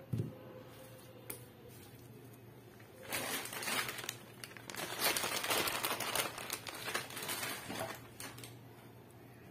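A soft thump as bread dough drops from the bowl onto a wooden board. About three seconds later a crinkling rustle starts and runs for about five seconds, the loudest sound here.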